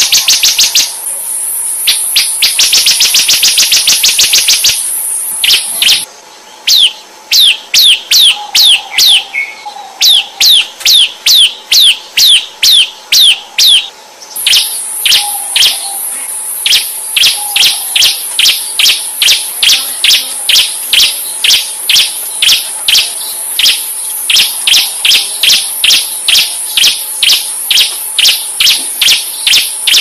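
Recorded song of a bar-winged prinia (ciblek), played as a bird lure. It opens with fast chattering runs near the start and again about two seconds in, then gives a long series of sharp, falling whistled notes, about two a second. A steady high-pitched hiss runs underneath, dropping out from about 6 to 14 seconds in.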